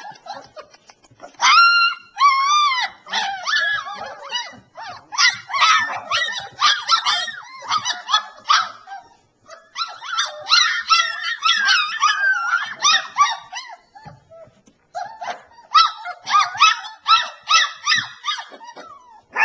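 Three-week-old Alaskan Malamute puppies whimpering and yipping: many high cries that rise and fall in pitch and overlap, with a few short lulls.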